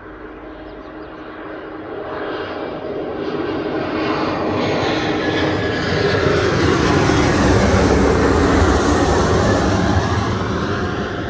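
Twin-engine jet airliner passing low overhead: engine noise grows steadily louder, peaks about eight seconds in, then begins to fade, with a whine that falls in pitch as it goes by.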